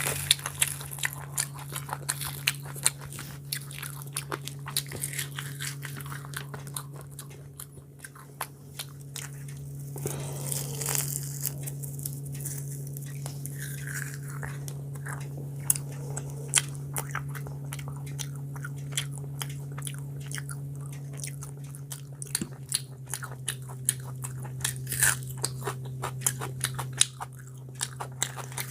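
Close-miked mukbang eating sounds: a person biting and chewing chicken and puri, with a steady stream of wet clicks and small crunches. A steady low hum runs underneath.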